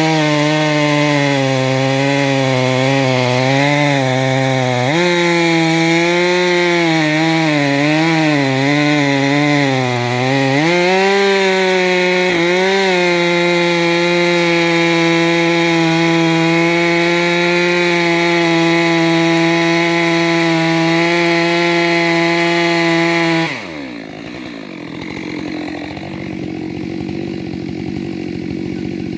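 Two-stroke chainsaw cutting wood at high revs, its pitch wavering as the chain bogs in the cut, then holding steady. About three-quarters of the way through the throttle is let off and the engine note drops away sharply, leaving a quieter background.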